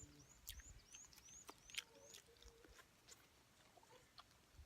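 Faint eating sounds: scattered crisp clicks and crunches of someone chewing grilled stingray. Through the first half a thin, high chirp repeats about three times a second.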